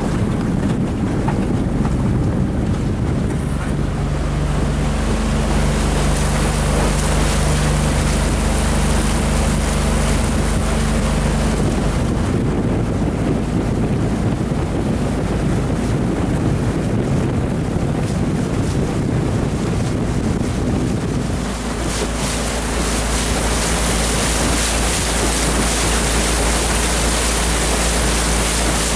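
Small boat's outboard motor running steadily, with water rushing along the hull and wind buffeting the microphone; the motor's note changes a couple of times along the way.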